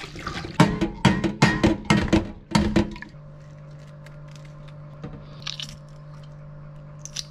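Hard-boiled eggshells being cracked by hand, with a quick series of sharp cracks and taps against a stainless steel pot for a couple of seconds. Near the middle there are a few faint crackles as the shell is peeled off.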